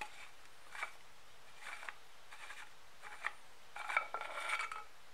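A small threaded cap being twisted out of the butt end of a wooden axe handle. It makes a series of short scraping squeaks as the threads turn, about six in all, with the longest just before the end.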